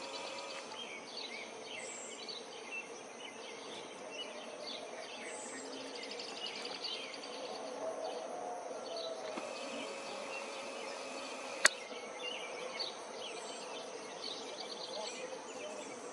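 Hummingbirds at a feeder: many short, high chirps over a steady outdoor background, with a faint buzz. There is a single sharp click about two-thirds of the way through.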